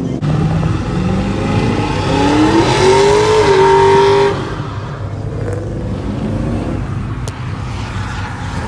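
A vehicle engine revving, its pitch climbing and holding high before cutting off sharply about four seconds in, followed by a lower engine rumble.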